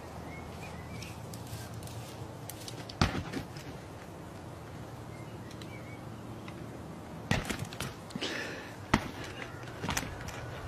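A ram butting a hanging punching bag: dull thuds and knocks, one about three seconds in, a quick cluster past the middle and another a little later, over a steady outdoor hiss.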